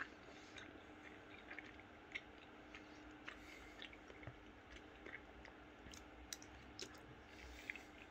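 A person chewing a mouthful of pasta with the mouth closed, quiet, with soft clicks scattered throughout, over a faint steady hum.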